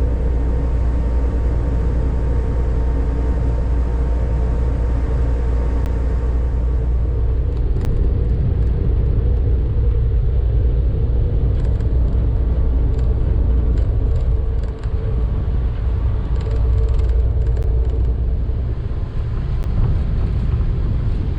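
Car ferry's engines running with a steady low rumble and a constant hum.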